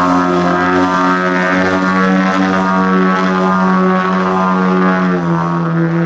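Large-scale radio-control aerobatic airplane's engine and propeller running steadily in flight. The pitch eases down slightly about five seconds in.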